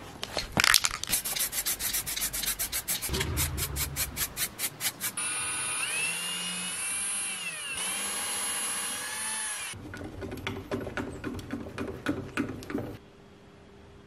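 Rapid rhythmic strokes for about five seconds, then a cordless drill's motor whining as it bores a small hole in a wooden block, its pitch wavering, then a few more seconds of rapid strokes that stop near the end, leaving a low hum.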